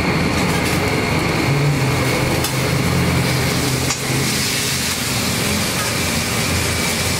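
Steady mechanical drone of a food truck kitchen's running equipment, over meat and apples sizzling on a flat-top griddle. A metal spatula clicks against the griddle twice, about two and a half and four seconds in.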